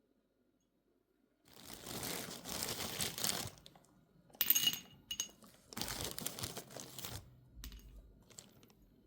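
Household handling sounds: two long stretches of crinkling rustle, with a short ringing clink between them, about halfway through.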